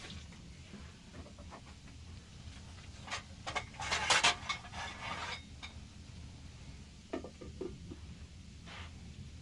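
A quick run of knocks and clatter, densest a few seconds in, with a few more knocks later, over a steady low rumble.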